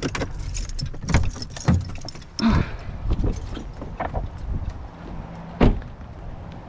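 Truck engine idling with a series of clicks and knocks of its door being worked, and a loud thump about five and a half seconds in.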